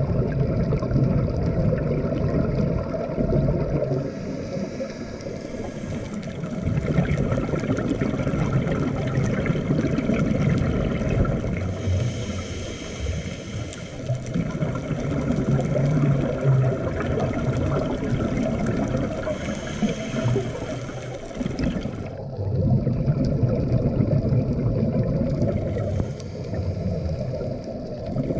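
Underwater sound picked up through a dive camera's housing: a steady low rumble of water, with the diver's scuba regulator exhaling a burst of bubbles about every seven and a half seconds, in time with slow breathing.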